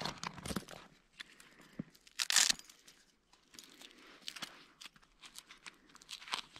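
Hands handling a nylon backpack and an orange fabric pouch: rustling and small clicks, with one loud, short ripping sound about two seconds in.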